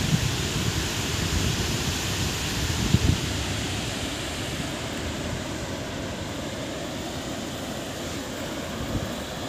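Steady rushing of water pouring through a dam's open spillway gates, with wind buffeting the microphone in low gusts near the start and about three seconds in.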